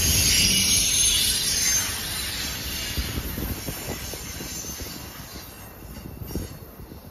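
Double-stack container train rolling past, its steel wheels running on the rails with a high-pitched noise at first. About two seconds in the sound drops and keeps fading as the last cars go by, leaving a few scattered knocks from the wheels.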